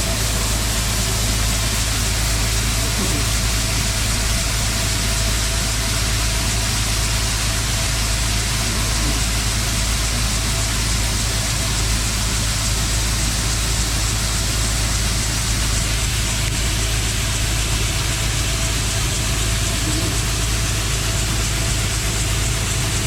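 Combine harvester running steadily while harvesting soybeans: a constant engine and machinery drone with a strong low hum.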